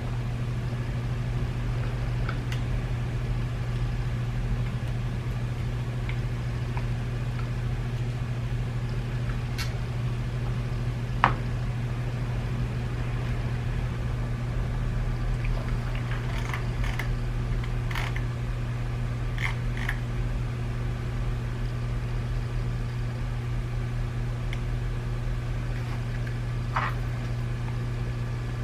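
Steady low electrical hum with scattered small clicks and taps from the plastic parts of a BMW iDrive controller and the tools used to take it apart. The sharpest click comes about eleven seconds in, and a few more bunch up a little later.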